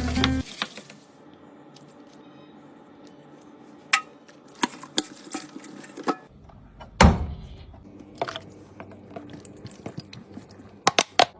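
Background music cuts off at the very start. After that come scattered clinks and knocks of household objects being handled during cleaning, the loudest a knock about seven seconds in.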